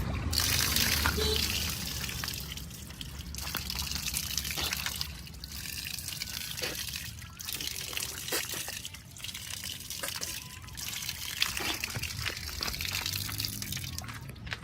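Diesel engine of a JCB 3DX backhoe loader running steadily, under an uneven hissing, trickling noise that comes and goes.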